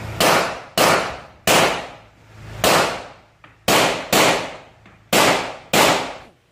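Rock Island Armory Tac Ultra FS HC, a high-capacity 1911-style pistol, firing eight shots in an uneven string, some spaced close and some with longer pauses. Each shot echoes off the walls of the indoor range.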